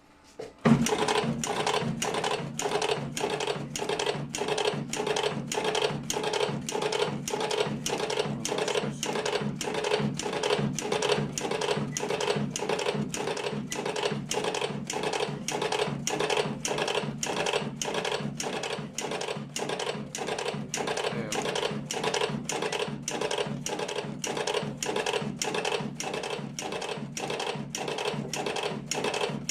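Remak R55 all-electric automatic cigarette-rolling machine starting up about a second in and running a steady rhythmic cycle, clacking a little over two times a second as it fills and rolls thick cigarettes.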